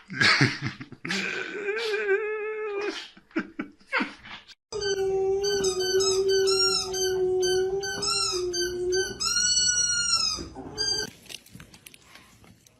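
A pet howling: a wavering call, then a long steady drawn-out note that starts suddenly, with shorter rising-and-falling calls over it near the end.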